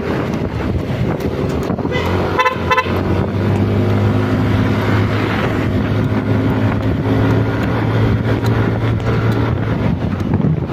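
Wind buffeting the microphone over a Yamaha scooter's engine running at road speed, with a few quick horn beeps about two seconds in.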